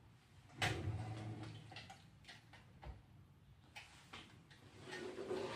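A sharp click about half a second in, then a few faint, scattered ticks and knocks.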